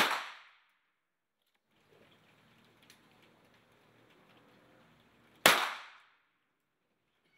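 Two single pistol shots from .22 target pistols, one at the very start and one about five and a half seconds in. Each is a sharp crack that dies away in about half a second.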